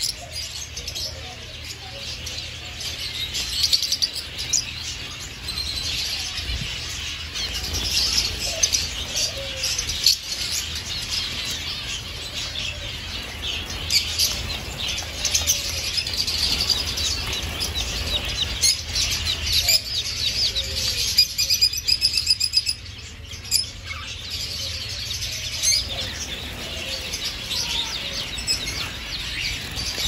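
Many small caged birds chirping and twittering at once, lovebirds and zebra finches among them, in a dense, continuous chatter of high, quick calls that briefly thins about two-thirds of the way through. A steady low hum runs underneath.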